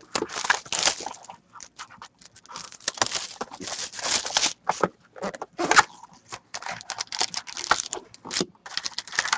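Plastic shrink-wrap crinkling and tearing as it is pulled off a cardboard box of Panini Totally Certified Hockey cards, in irregular rustles and crackles; near the end the box is opened and a shiny card pack handled.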